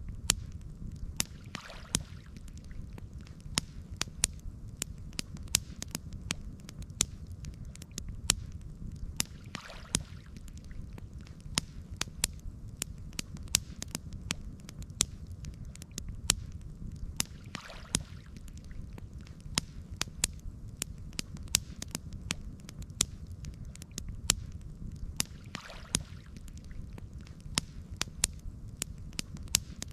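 Campfire crackling, with frequent sharp pops and snaps over a low steady rumble. A soft swell of hiss rises and fades about every eight seconds.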